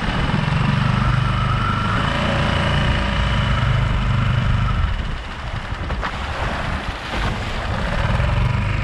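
Small outboard motor on a micro skiff running under way, with a steady rumble and water and wind wash. About five seconds in, the motor note drops back and the wash grows as the skiff meets choppy water, with a couple of knocks from the hull on the chop.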